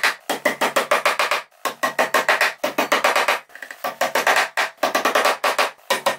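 Background music with a quick percussive beat, in short phrases broken by brief pauses.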